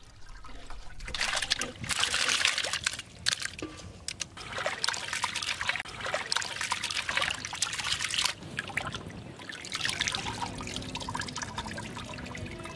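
Raw chicken pieces being washed by hand in a metal pot of water: water splashing and sloshing in irregular bursts, with trickling as water runs off the squeezed meat.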